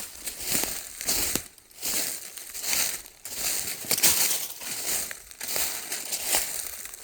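Footsteps crunching through dry fallen leaves on a forest trail, one crunch roughly every half second to second at a walking pace.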